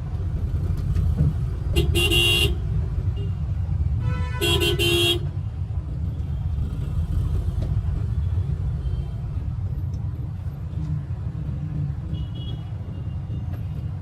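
A car horn sounds two short honks about two and a half seconds apart over the steady low drone of a car driving, heard from inside the cabin.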